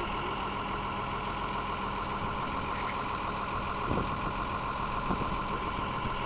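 Tractor engine running at a steady speed, a constant drone with a steady whine above it. A couple of small knocks come about four and five seconds in.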